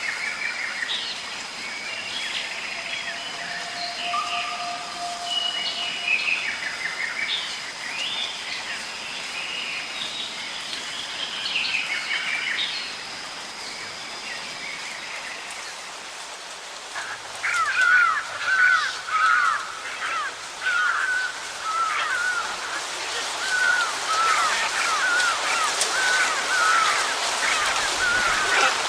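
Birds singing and chirping over a steady hiss. In the second half, one bird repeats a quick series of short chirped notes, about two a second.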